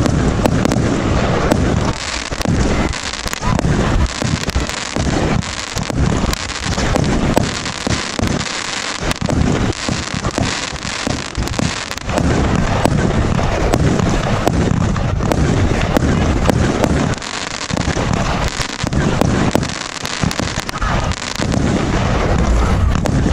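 A 1.3G Signature 49-shot firework cake firing: a dense, continuous run of shots and crackling bursts, with many sharp cracks throughout, somewhat fuller in the second half.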